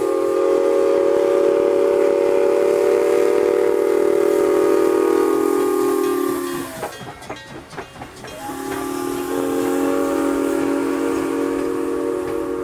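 Steam whistle of 0-6-0 switcher #7470 blown in two long blasts, each a chord of several steady tones; the first lasts about six seconds, and after a short gap with a patter of clicks the second sounds and begins to fade near the end.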